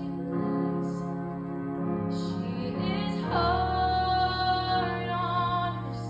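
A girl singing solo into a microphone, backed by a small band. About three seconds in she moves onto a long held note with vibrato that lasts until near the end.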